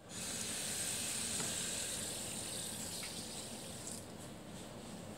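A steady, even hiss, bright and high, that eases off a little about four seconds in.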